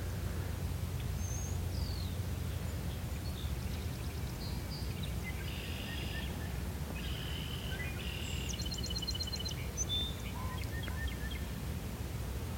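Wild birds chirping and calling, with a quick trill of evenly repeated notes about two-thirds of the way through, over a steady low rumble.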